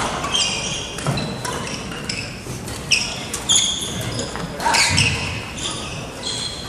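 Badminton players' court shoes squeaking on a wooden gym floor, many short high squeaks from several players at once, with a few sharp racket strikes on the shuttlecock and faint voices echoing in the hall.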